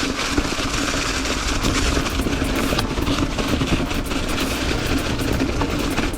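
Mountain bike riding down a rocky, leaf-covered singletrack: wind rushing over the camera mic and the tyres and bike rattling over rocks without pause.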